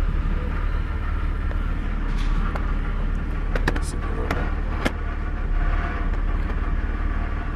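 Car engine idling, heard from inside the cabin as a steady low rumble. A few sharp clicks sound around the middle.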